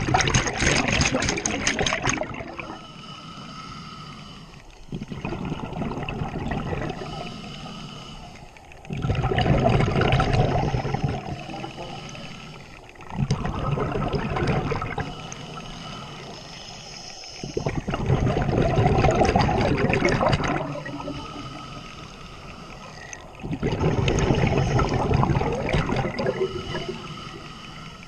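A scuba diver's regulator, heard underwater: bursts of exhaled bubbles come about every four seconds, six in all, with quieter hissing stretches between them.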